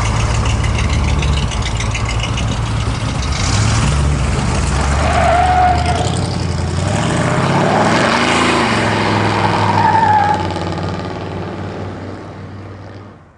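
Engines of two old pickup trucks, a Ford F-100 and a Chevy, running as they drive off, one revving up and back down near the middle. The sound fades away over the last few seconds.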